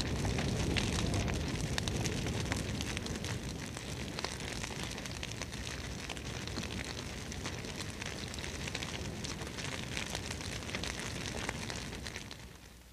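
Wood campfire burning, a dense crackle of small pops over a steady rushing noise, fading away near the end.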